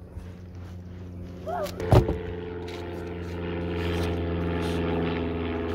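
A motor's steady drone that grows louder over the first few seconds, with a single loud thump of a basketball bouncing about two seconds in.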